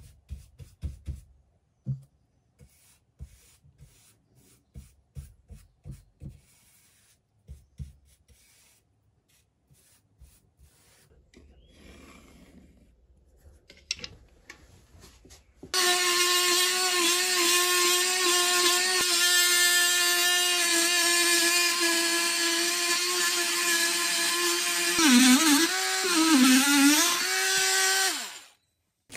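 Cordless oscillating multi-tool plunge-cutting into a plasterboard wall, a steady high whine that starts about halfway in, dips in pitch twice near the end as the blade bites, and then stops. Before it there are only scattered light knocks and handling sounds.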